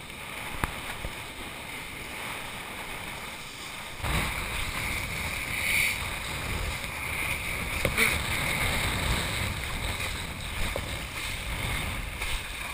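A kiteboard rushing over the water while riding a wave, with wind buffeting the microphone; the rush gets louder and heavier about four seconds in.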